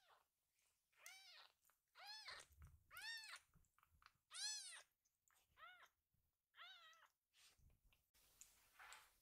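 A kitten mewing as it is tickled on its belly: about six short, high-pitched mews, roughly one a second, each rising then falling in pitch.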